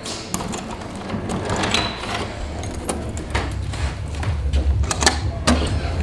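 Key working a metal doorknob lock, then a window latch and frame being handled: a string of sharp clicks and knocks over a low rumble.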